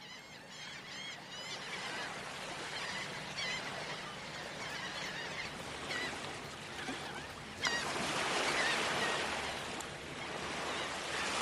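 Seaside ambience: surf washing steadily while gulls cry again and again, a quick cluster of calls near the start and more scattered ones later. The waves swell louder about two thirds of the way through.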